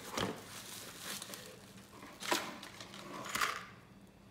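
Plastic bubble-wrap packaging crinkling in short bursts as it is handled, the loudest rustles about two and three and a half seconds in.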